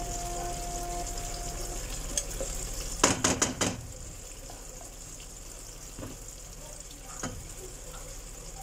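Chicken pieces sizzling gently in butter and oil in a pan as yogurt is spooned in, with a quick run of about five knocks from the wooden spoon about three seconds in and a couple of single knocks later.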